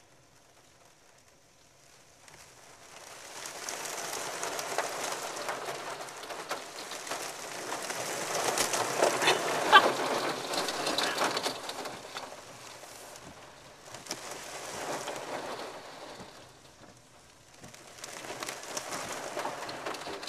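Waterfall spray pouring and splashing onto a car's windshield, heard from inside the car. It swells a couple of seconds in and is loudest in the middle, with a few sharp splashes. It eases off, then surges again near the end.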